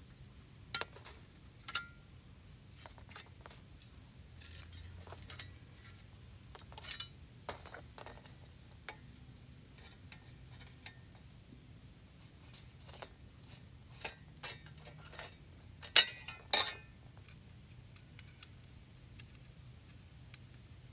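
Scattered metallic clinks and knocks of tools and scrap metal being handled, with a pair of sharper clanks about 16 seconds in.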